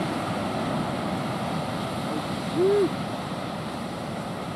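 Ocean surf breaking and washing onto the beach, a steady rushing noise. About two and a half seconds in, a brief rising-then-falling tone, like a short call or whistle, stands out as the loudest moment.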